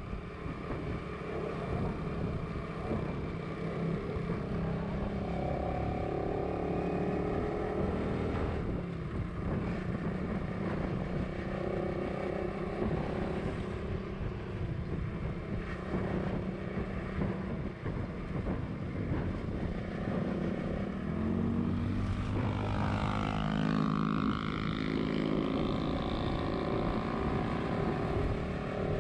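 Motorcycle engine running on the move, its pitch drifting up and down with speed, over steady road noise; a stronger change in the engine note comes about 22 seconds in.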